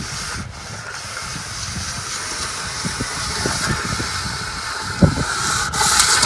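Long aluminium straightedge worked back and forth across fresh cement plaster on a brick wall: a steady scraping rasp, with short breaks about half a second in and again near the end.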